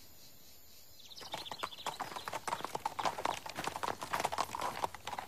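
Hooves of a horse clip-clopping at a walk as it is led along, starting about a second in after a near-silent moment.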